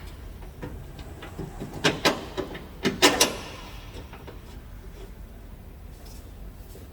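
Several sharp metal clinks and knocks, bunched about two to three seconds in, the loudest with a brief ring, as a bolt is fitted into a rear shock absorber mount.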